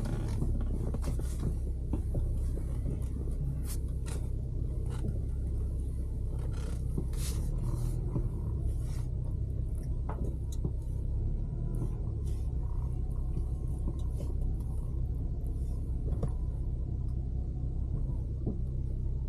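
Steady low rumble of a moving car, with scattered faint clicks and knocks.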